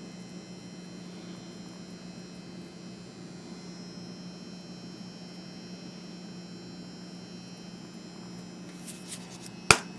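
Steady hum of a blowing electric fan, with a few light clicks about nine seconds in and one sharp, loud click just before the end.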